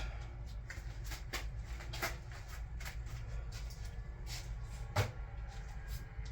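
A few light clicks and knocks of tools and parts being handled, the loudest about five seconds in, over a steady low hum.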